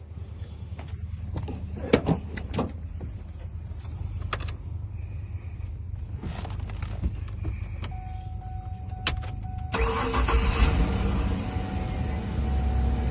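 Clicks as the new key goes into the 2004 Ford Ranger's ignition, then, about ten seconds in, the engine cranks, starts and runs: the freshly programmed transponder key is accepted by the immobilizer.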